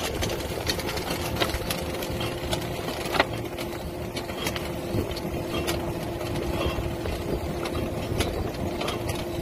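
A small fishing boat's motor and its net hauler run steadily with a constant hum while a gill net is hauled aboard. Scattered clicks and knocks sound over the hum, with a sharper knock about three seconds in.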